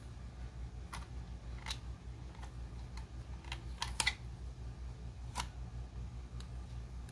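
Light plastic clicks and ticks from handling the DJI Mini 2 kit and its packaging, scattered and irregular. A cluster of sharper clicks comes about four seconds in, over a steady low hum.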